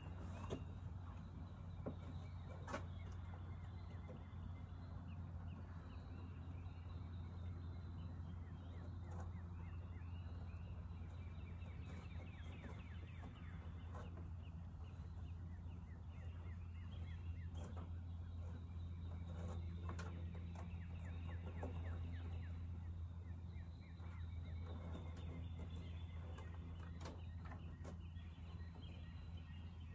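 Faint bird chirping, many short calls, over a steady low rumble, with scattered clicks and knocks from a rope hay net being untied and handled.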